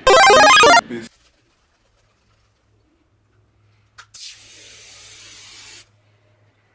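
A short, loud musical sound effect at the start. About four seconds in, a click and then a steady hiss for about a second and a half: an aerosol can of whipped cream spraying.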